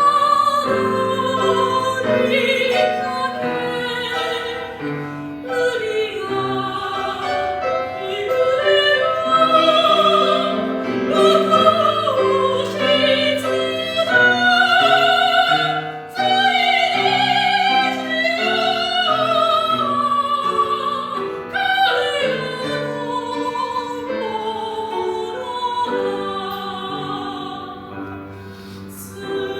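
Soprano singing with wide vibrato over piano accompaniment, a classical art song.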